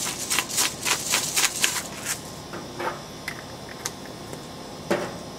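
Hand-twisted pepper grinder cracking coarse pepper: a run of rapid crunching clicks that stops about two seconds in. After it come a few scattered ticks and one sharper click near the end.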